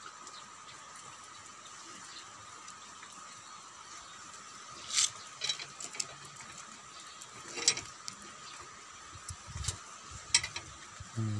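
Sharp metallic clicks and clinks from a bent steel rebar stirrup and a steel tape measure being handled. They come in scattered groups from about five seconds in, with a few low thuds near the end, over a faint steady tone.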